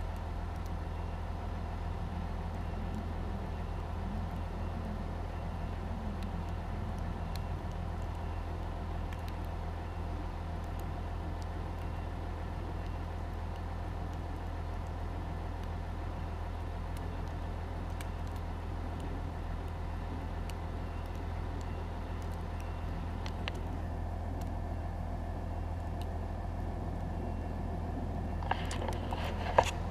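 A vehicle engine idling steadily: a low, even hum with a few steady tones above it, with a few sharp knocks near the end.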